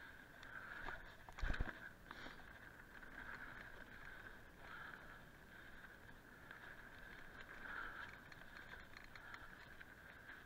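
Mountain bike rolling fast down a dirt singletrack: a steady buzz from the bike and tyres on dirt, with a hard knock about a second and a half in as the bike hits something on the trail.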